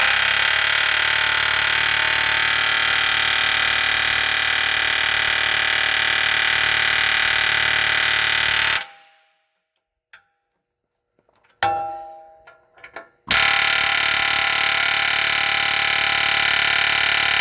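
Pneumatic air chisel hammering at a stubborn steel frame rivet on a military truck frame, in two long steady bursts of about nine and five seconds. A few light metallic clinks fall in the pause between them.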